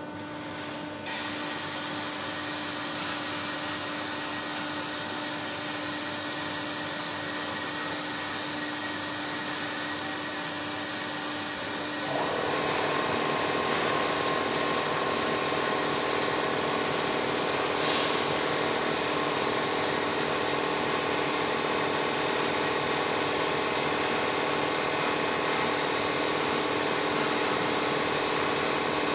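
Automatic submerged-arc light-pole welding machine running: a steady machine hum with motor noise that grows louder about a second in and again about twelve seconds in.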